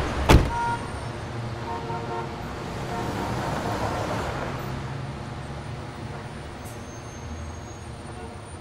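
A car door slams shut once, right at the start. Then the BMW sedan pulls away on the wet road, its engine and tyre noise swelling for a few seconds and fading, over traffic noise.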